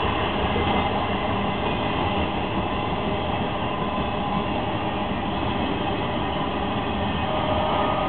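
BNSF double-stack intermodal freight train rolling past, a steady noise of its cars' wheels on the rails.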